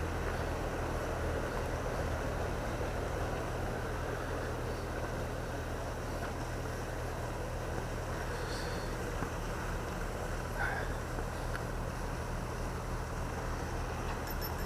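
Narrowboat diesel engine running steadily at low revs, a constant low hum.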